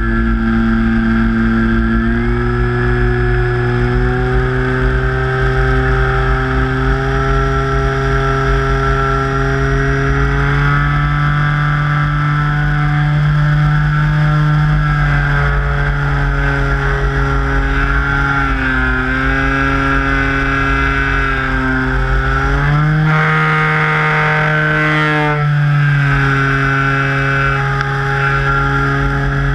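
Electric motor and propeller of an E-flite Carbon-Z Cub RC plane in flight, a steady droning whine that rises and falls in pitch several times with the throttle, the sharpest rise a little past two-thirds of the way through. A low rumble of wind on the onboard camera's microphone runs under it.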